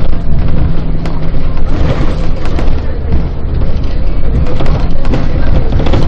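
City bus on the move: loud, steady low engine drone and road rumble, with frequent short rattling clicks.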